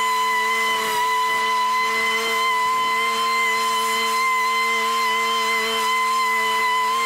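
Riding lawn mower's engine running steadily, with a steady high whine over the engine note.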